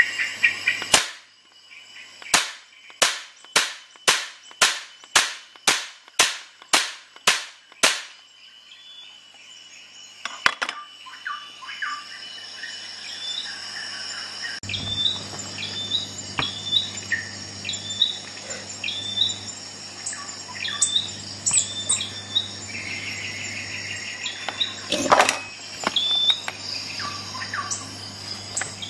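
Parkside PHET 15 B1 electric stapler/nailer firing about a dozen times in quick, even succession, roughly twice a second, each shot a sharp clack. It fires once more, loudly, about 25 seconds in.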